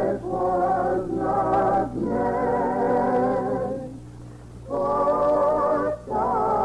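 A choir singing slow, held chords without words, each lasting a second or two with short breaks between them, and a softer lull about four seconds in.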